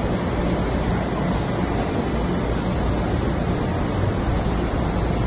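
A TPE carpet back coating machine running: a steady, even mechanical noise with a low hum underneath.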